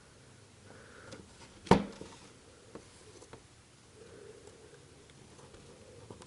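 Small clicks and taps of hands and tools handling an opened iPhone's parts: one sharp click a little under two seconds in, then a few faint ticks and soft handling noise.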